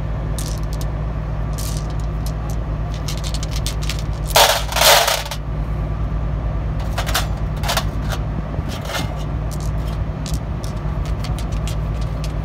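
Loose steel bearing rollers clinking against each other and a steel pan as they are wiped with a rag: light metallic clicks throughout, with two louder rattles between about four and five seconds in, over a steady low hum.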